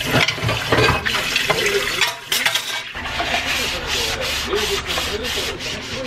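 Rubber-gloved hands washing glassware at a stainless steel sink: quick rubbing and scrubbing strokes, several a second, with short squeaks of rubber on wet glass. Tap water runs for the first couple of seconds.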